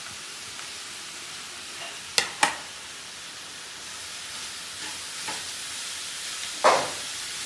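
Grated cabbage, onion and capsicum sizzling in hot oil in a kadhai, a steady hiss. Two sharp taps a little over two seconds in, and a louder clatter near the end as a spatula stirs against the pan.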